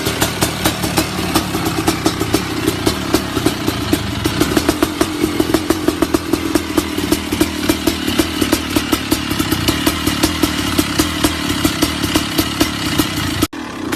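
Two-stroke motocross bike engine running at fairly steady revs with a crackly, rapid exhaust note. It cuts off abruptly near the end and picks up again.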